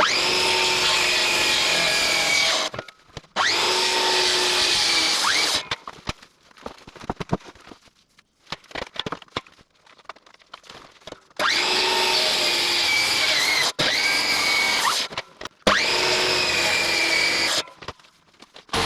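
A cordless electric saw cutting into an oak beam for a half-lap joint, in five runs of about two seconds each: two near the start and three later after a pause with a few small knocks. Each run ends with the motor's whine falling as it spins down.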